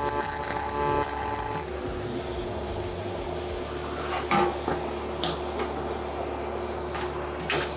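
MIG welding arc buzzing and crackling on steel, stopping abruptly about two seconds in. Then a steel frame is lifted and flipped on a steel welding table, with a few knocks and clanks, the loudest about four seconds in.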